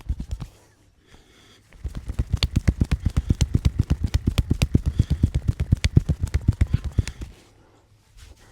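Rapid rhythmic hand strikes of a head massage: fast tapping and slapping on the head at about eight strokes a second. They pause briefly about a second in and stop shortly before the end.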